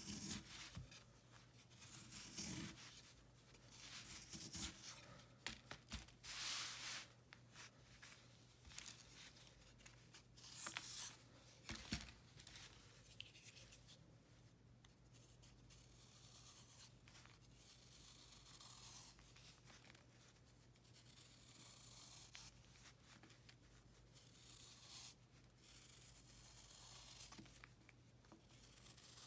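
Utility knife blade scraping and cutting into a pressed block of marbled baking soda, chalk and calcium carbonate, with irregular crisp scratching crunches as flakes break away and crumble.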